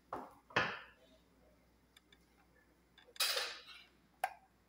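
Cooking pot and wooden spoon being handled on a gas stove: two short knocks and scrapes near the start, a longer scrape about three seconds in, and a sharp click near the end.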